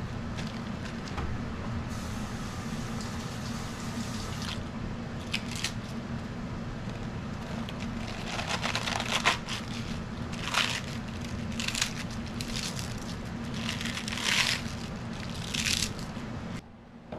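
Crisp head lettuce being torn into pieces by hand: a string of short crunchy rips and snaps, a second or two apart, starting about five seconds in. A steady low hum runs underneath.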